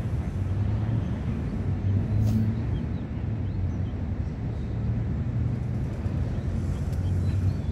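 Steady low rumble of a diesel train running in a station yard.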